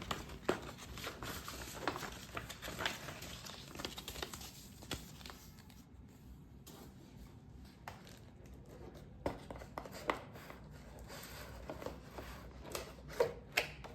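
Packaging being handled by hand: scattered light clicks, taps and rustling of cardboard and plastic.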